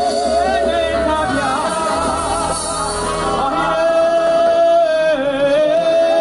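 Church choir lead singers singing through microphones over amplified band accompaniment, their voices wavering with vibrato. One long note is held through the middle.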